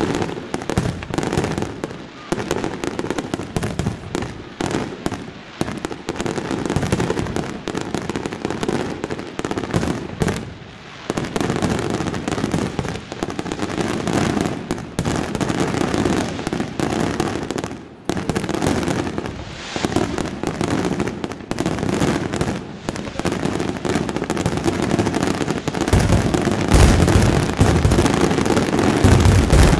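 La Rosa International Fireworks aerial display: a dense, continuous run of shell bursts and crackling. Heavier, deeper booms build up near the end.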